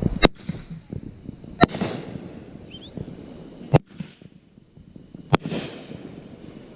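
Fireworks going off: four sharp bangs spaced about a second and a half to two seconds apart, a couple of them trailed by a brief crackling hiss.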